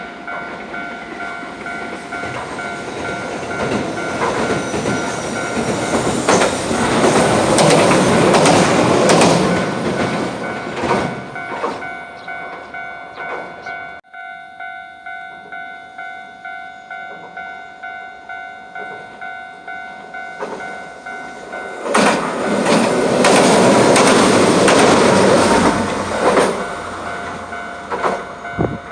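Japanese level-crossing alarm ringing in a steady, evenly repeating pattern while a Hiroden tram passes over the crossing, its wheels clattering on the rails. The sound cuts off abruptly about halfway through. Then the alarm rings on and a second tram passes, loudest in the last few seconds.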